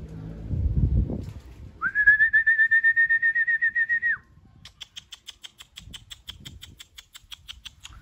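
A loud, warbling high whistle held for about two seconds, then a fainter rapid series of high pips, about five a second, from about halfway in. A short low rumble comes about a second in, before the whistle.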